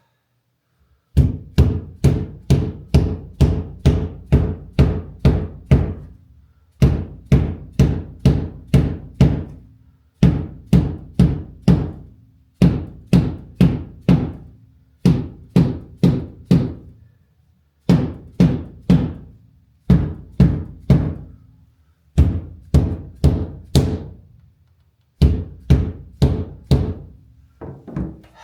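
Runs of hard, dull thumps, about three a second, broken by short pauses, from the rear window glass of a Jaguar MKII being struck to seat it into its rubber seal.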